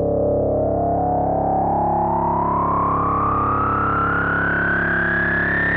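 Synthesizer drone: a steady low note with a bright tone above it that rises slowly and steadily in pitch.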